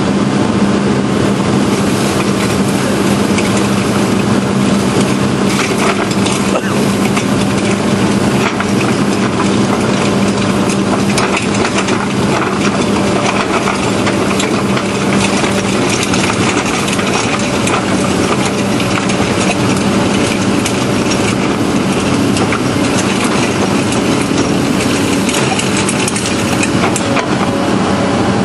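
Excavator-mounted hydraulic drum cutter grinding into weathered rock: a steady hum from the machine with a dense, continuous crackle of rock breaking under the cutter picks.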